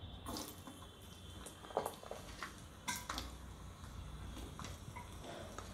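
A few soft, scattered clicks and knocks as pieces of coconut are dropped into a small metal kadai with a little oil.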